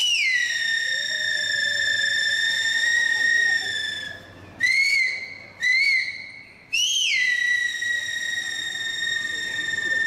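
Okinawan finger whistle (yubibue), blown with one hand into a handheld microphone. A high note swoops down and is held for about four seconds. Two short rising-and-falling chirps follow, then another downward swoop into a long held note.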